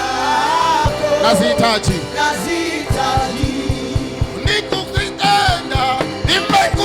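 Live worship music: a voice singing a slow Swahili worship song over band accompaniment, with a steady drum beat.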